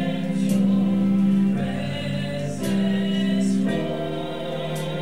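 Church choir singing a gospel worship song in long held chords that shift to new notes three times.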